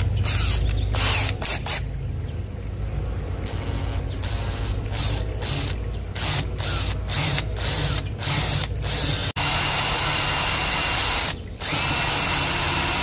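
Cordless drill boring a hole in a metal spear shaft clamped in a vise. It runs in short trigger pulses, then in two longer steady runs near the end.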